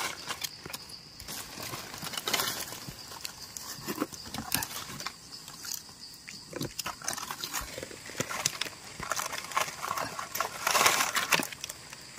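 Rustling of dry leaf litter and a knife scraping and picking in soil as a mushroom is dug up and its stem trimmed, with many small irregular clicks and crackles. The rustling gets louder near the end.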